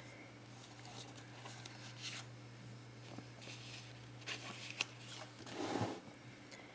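Hands handling paper sticker sheets and a spiral-bound planner: light paper rustles and ticks, a couple of sharp clicks a little past four seconds, and a louder rustle around six seconds as the planner is shifted on the table. A faint steady low hum runs underneath.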